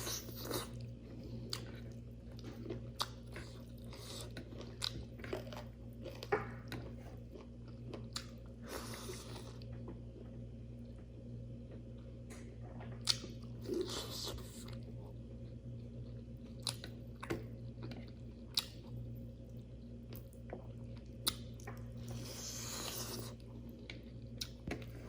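Close-miked chewing and crunching of food, with many sharp clicks and smacks and a few louder crunches scattered throughout, over a steady low hum.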